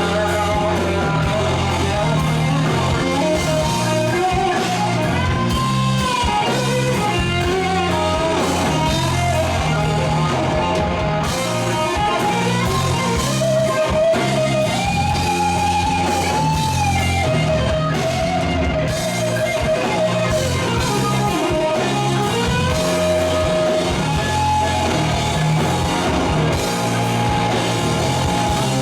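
Instrumental rock music played by a band: a guitar carries held, bending melody notes over a steady bass line.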